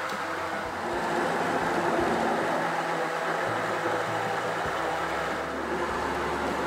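Electric blender running steadily, pureeing cooked vegetable soup.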